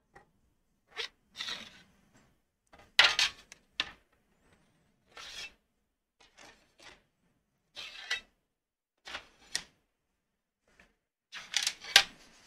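Drilled 1/8-inch aluminum plates being handled, slid over one another and over paper: irregular short scrapes and light knocks, the loudest about three seconds in and near the end.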